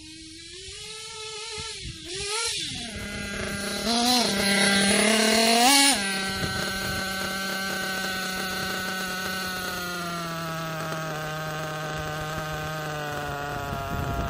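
Kyosho KE25 nitro engine in an RC truggy revving up and down under bursts of throttle, loudest about four to six seconds in. It then settles into a steady idle whose pitch slowly sinks: the engine idling between passes on its last heat-cycle break-in tank.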